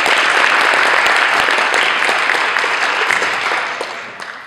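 Audience applause, dense and steady, dying away over the last second.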